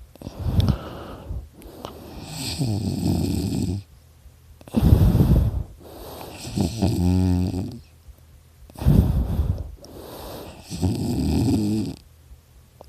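A person snoring in sleep: three slow, loud breaths about four seconds apart, each in two parts, one with a buzzing throat rattle, with faint high whistling through the nose. The snorer puts the snoring down to extra tissue in the throat.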